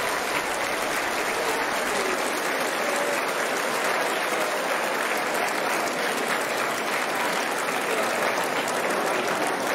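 A large audience applauding, with many hands clapping in a steady, continuous wash of applause.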